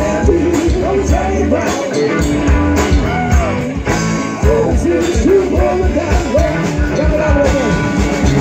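Live blues-rock band playing: electric guitars over a drum kit with a steady beat, and a woman singing into a microphone.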